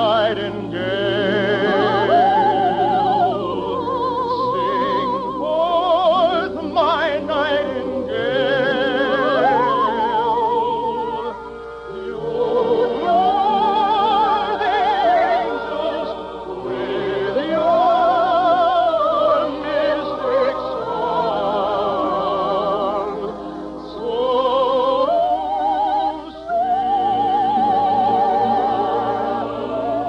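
Operatic soprano singing with wide vibrato, long held high notes rising and falling, over orchestral accompaniment.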